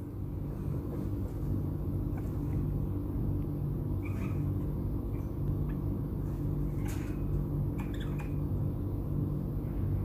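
Steady low background rumble and hum, with a few faint short ticks about four and eight seconds in.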